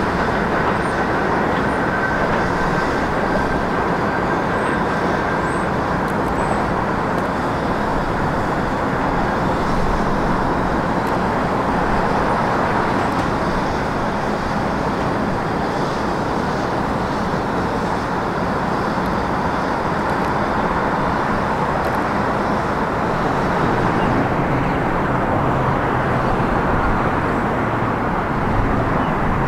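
R68 subway train running on an elevated steel line, mixed with steady city traffic noise, with a faint high whine in the first few seconds.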